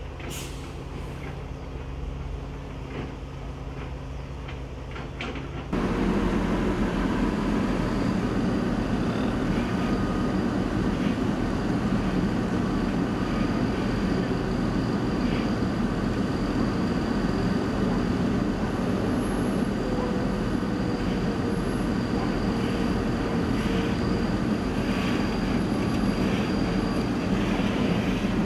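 Diesel engines of an excavator and dump truck running with a steady low hum. About six seconds in, this cuts to a louder steady rushing noise with faint scattered scrapes, from shovels working through mud and wind on the microphone.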